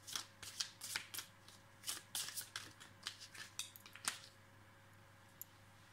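Tarot cards being shuffled and handled: a run of irregular quick card flicks and slaps for about four seconds, then they stop.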